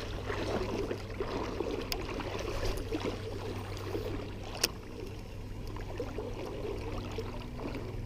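River water flowing and lapping, with a single sharp click about four and a half seconds in.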